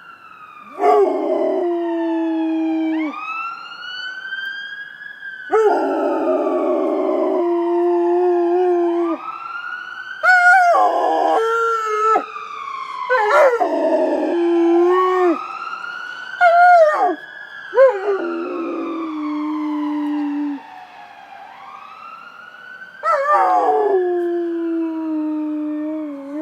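Rottweiler howling in long notes held mostly at one pitch, again and again, over an ambulance siren wailing up and down every four to five seconds. The howls are the loudest sound, each lasting one to two seconds.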